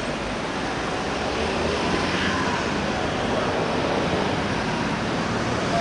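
Steady rushing noise of an approaching train, an EP09 electric locomotive with four passenger coaches, slowly growing louder as it nears.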